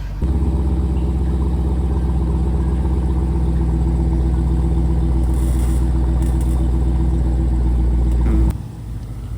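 Jeep Grand Cherokee SRT's 6.4-litre HEMI V8 running steadily at idle with a deep exhaust note. The sound starts abruptly and cuts off shortly before the end.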